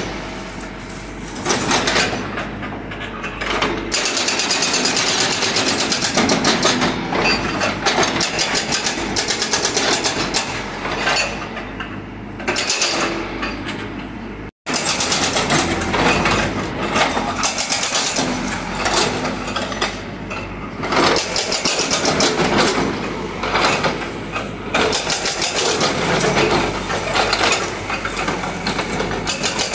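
A hydraulic breaker on a Caterpillar backhoe loader hammers rapidly into brick and concrete rubble, over the diesel engine running under load. The hammering cuts out for an instant about halfway through.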